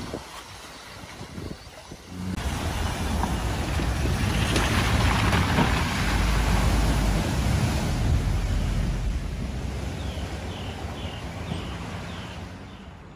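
Cars driving through a flooded ford: water rushing and splashing up around the tyres, with a low engine and water rumble beneath. It is quieter for the first couple of seconds, then the splashing loudens sharply and fades toward the end.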